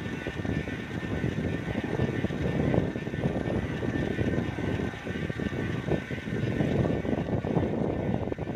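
Wind buffeting a microphone carried on a moving bicycle, a gusty low rumble that rises and falls irregularly, mixed with road noise.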